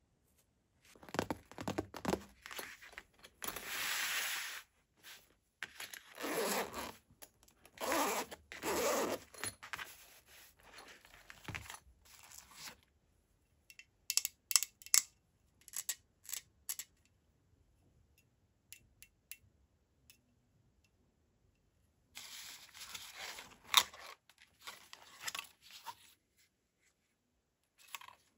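The zipper of a soft nylon pistol case is drawn open in several long rasping pulls. Then come sharp clicks and taps as a pistol magazine and the pistol are handled, and near the end more fabric rustling and clicking as the pistol is lifted out of the case.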